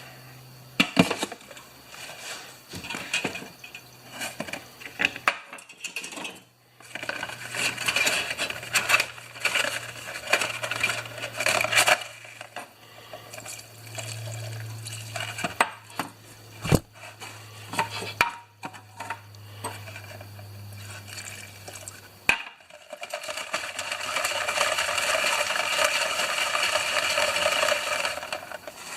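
Metal clinks, knocks and scraping as a lawn mower's recoil starter spring and its parts are handled and cleaned, with a steadier rubbing noise for several seconds near the end.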